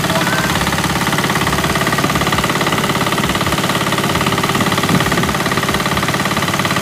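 Pasquali 10.5 HP two-wheel tractor engine running steadily with a fast, even pulsing, driving a small Vidhata stationary grain thresher through a PTO shaft while sheaves are fed into it.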